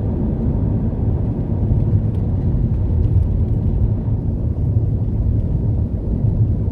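Steady low rumble of a car in motion, engine and tyre-on-road noise heard from inside the cabin.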